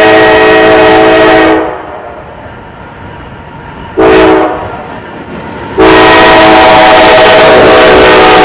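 Norfolk Southern diesel freight locomotive's air horn, several tones at once, sounding the grade-crossing signal: a long blast that ends about a second and a half in, a short blast about four seconds in, and a final long blast from about six seconds in that is still sounding at the end. The train's rumble is heard between the blasts.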